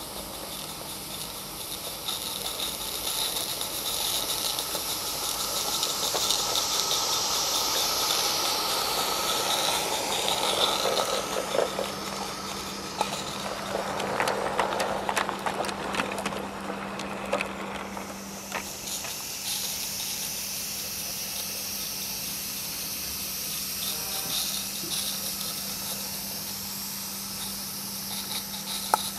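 Live-steam Roundhouse Fowler garden-railway locomotive hissing steam as it hauls its train past. It has no chuffer fitted, so its exhaust is a steady hiss rather than a beat. In the middle, the wagons' wheels click and rattle over the track as they roll by.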